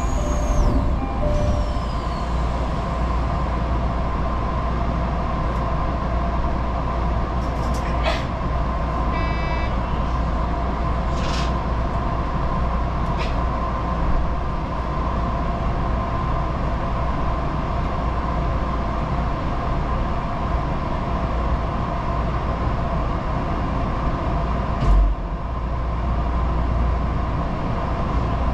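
Electric commuter train heard from inside the driver's cab: a steady humming drone with a few light clicks, a short series of beeps about nine seconds in and a low thump near the end, as the train stands at a platform and then moves off.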